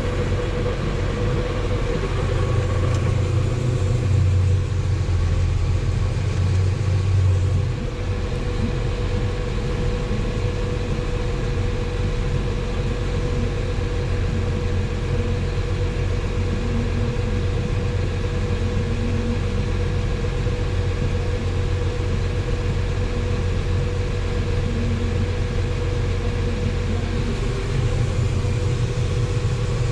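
Large farm-machine engine running steadily: a constant low drone with a steady higher tone over it, dipping slightly about eight seconds in.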